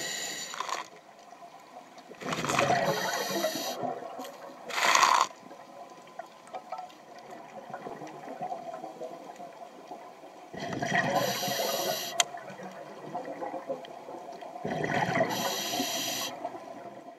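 Scuba diver's regulator underwater: rushing bursts of exhaled bubbles every few seconds, with a longer quiet stretch in the middle.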